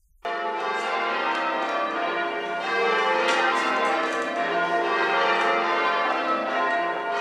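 Church tower bells being rung in change ringing: a continuous run of overlapping bell strokes, the peals following one another in rapid succession. The ringing cuts in suddenly just after the start.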